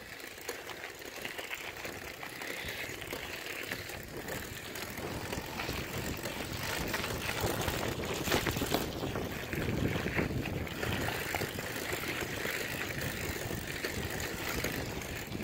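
Wind rushing over a phone microphone while riding a bicycle, louder from about halfway through, with the bike's slightly clicky chain ticking underneath.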